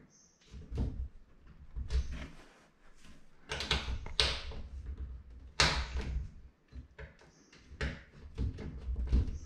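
Irregular small clicks, knocks and scrapes of a metal toilet roll holder being turned on its wall bracket and its set screw worked with a small screwdriver.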